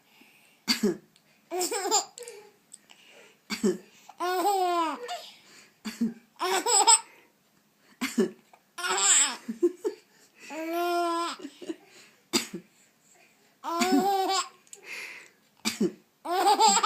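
A 16-week-old baby laughing in about seven separate bursts, each set off by an adult's short cough.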